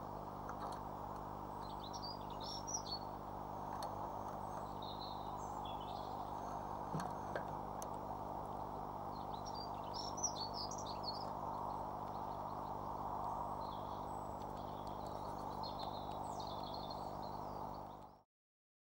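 Small birds chirping in several short bursts of high twittering, over a steady hiss and low electrical hum, with a few sharp clicks. The sound cuts off suddenly near the end.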